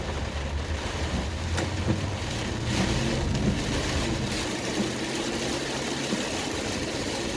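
2003 Honda Accord V6 heard from inside the cabin while driving on wet road. The engine hums steadily under load as the automatic transmission pulls up through the gears, over a constant hiss of tyre and rain noise.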